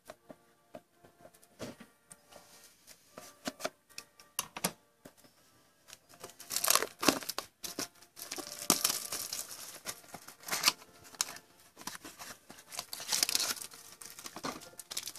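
Trading card pack being handled and torn open. Light clicks and rustles at first, then from about six seconds in, repeated loud bursts of the wrapper crinkling and tearing.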